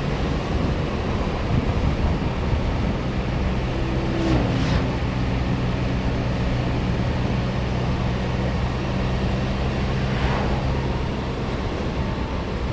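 Engine of a vehicle being ridden on the road, running at a steady cruising pace over continuous wind and road rush. A steady engine note sets in about three seconds in and drops away about a second before the end.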